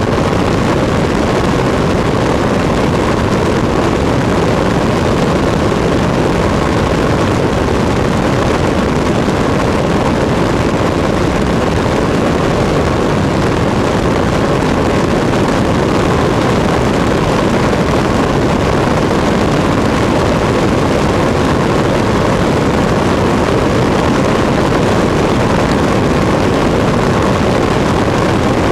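Cessna 152 in cruise flight heard from a camera mounted outside the airframe: a loud, steady rush of airflow over the microphone with the engine and propeller drone beneath it, unchanging throughout.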